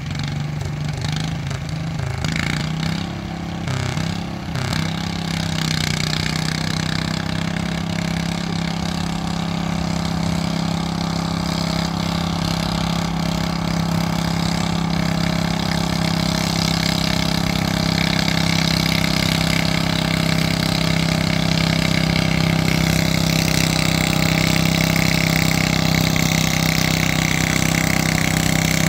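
Blue 14 hp Ford garden tractor's engine running hard under load as it drags a weight-transfer pulling sled. The pitch wavers for the first few seconds, then holds steady while the engine grows louder as the tractor nears.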